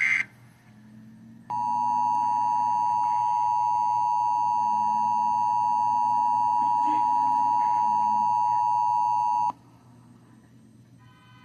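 The last fraction of a second of an Emergency Alert System SAME digital header burst, a harsh data screech, then the EAS two-tone attention signal (853 and 960 Hz together). The attention signal comes in about a second and a half in, holds steady for about eight seconds and cuts off abruptly. It announces that an alert message is about to follow.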